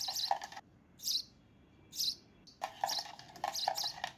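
Birds chirping in short, separate high-pitched calls, several in a row with pauses between them.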